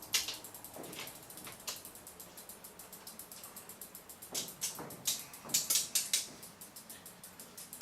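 Ratchet of a Park Tool torque wrench with a 6 mm Allen bit clicking in a steady run of small ticks as it is worked back and forth, tightening a bicycle pedal into the crank arm, with a few louder clicks about halfway through.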